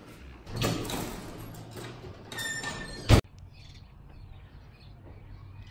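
Metal-framed exit door opening and swinging, with a brief high squeal. It shuts with a single loud bang about three seconds in, followed by faint outdoor ambience with light chirps.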